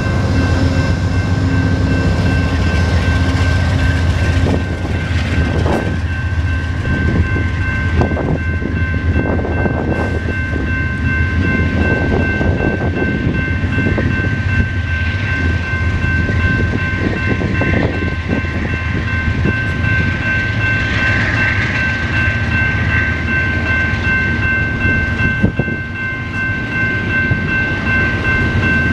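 Amtrak passenger train's baggage and double-deck Superliner cars rolling past, a steady rumble of steel wheels on rail with scattered clicks as wheels cross rail joints. A steady high-pitched tone rings over it throughout.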